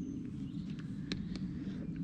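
Outdoor ambience: a steady low rumble of wind on the microphone, with a couple of faint clicks about a second in and a brief faint high chirp at the start.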